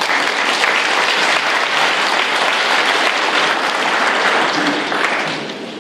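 Large audience applauding, dense and steady, then tailing off near the end.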